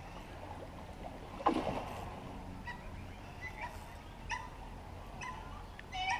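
A hooked carp splashes once at the surface about a second and a half in. Short bird calls follow, repeated about once a second.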